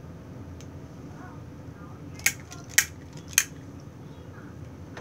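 Three sharp taps of hard objects knocking together, about half a second apart, a little past two seconds in, over a low steady background noise.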